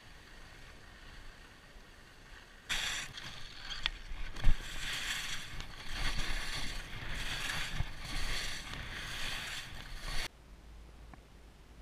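Skis scraping and hissing over packed, choppy snow through a run of turns. It starts suddenly about three seconds in, swells with each turn about once a second, and cuts off abruptly near the end. There is one sharp click shortly after the skiing starts.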